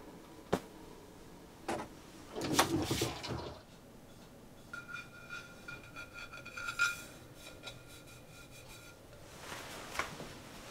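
Quiet handling of a ceramic donabe clay pot: a couple of light clicks and a rustle, then fingers rubbing over the scorched glaze inside the pot, giving a squeaky, pulsing rub for about four seconds. Near the end the pot is set down on a wooden table with a soft knock.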